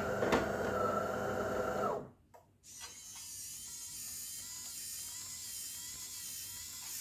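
Coffee machine at work: a motor hums steadily, stops about two seconds in, a couple of clicks follow, then a steady high hiss with a faint wavering whine runs until it cuts off suddenly near the end.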